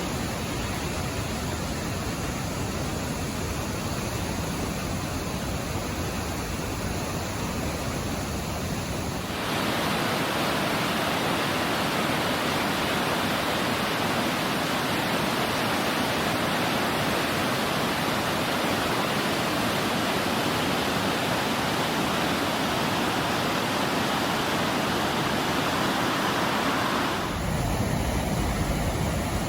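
Merced River water rushing steadily. About nine seconds in it changes abruptly to a louder, brighter rush, and near the end it changes back to a duller flow with more low rumble.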